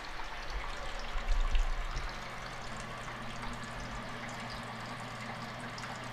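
Wort running steadily from the recirculation hose into a homebrew mash tun, a continuous trickling, pouring stream, with a low steady hum underneath from about two seconds in. There are some low bumps in the first two seconds.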